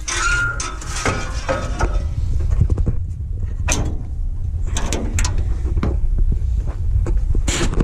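Clunks and knocks of the round baler's spare net wrap roll being swung out from its carrier, over a steady low rumble.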